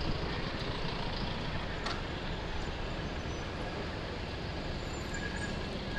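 Steady road and traffic noise heard from a moving e-bike in city traffic, with low rumble and wind on the microphone. A single click about two seconds in.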